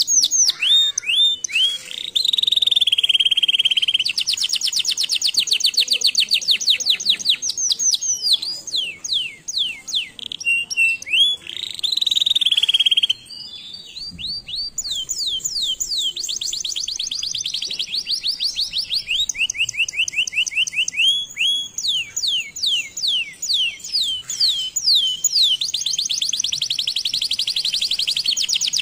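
Canary singing a long song of rapid trills: fast runs of repeated high notes alternating with falling sweeps and buzzy rolls. There is a brief softer break about halfway through.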